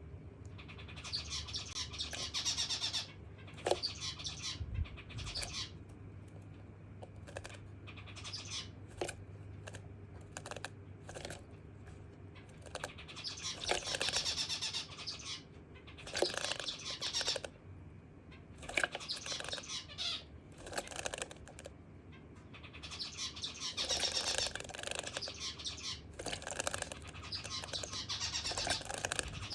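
Java sparrow bathing in a water dish, fluttering its wings to splash in repeated bursts of one to three seconds, with short pauses and small clicks between.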